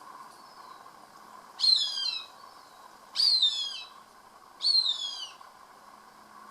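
Cooper's hawk calling three times, about a second and a half apart, each call a loud, high squeal that slides down in pitch.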